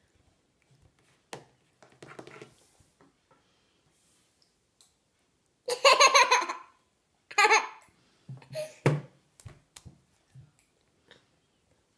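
A toddler laughing out loud in quick pulsing bursts: a long laugh about six seconds in, another at about seven and a half seconds, then a shorter chuckle. A few short taps follow near the end.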